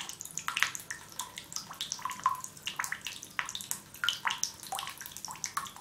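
Water dripping and trickling into a bathtub of standing water: rapid, irregular plinks and small splashes, several a second.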